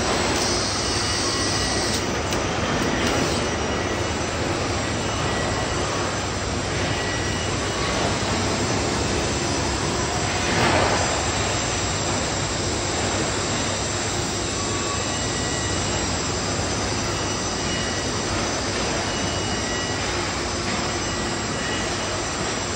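Steady din of a robotic car-body assembly line: machinery noise with faint steady whines running through it. A higher hiss shows in the first couple of seconds, and a brief louder burst comes about ten seconds in.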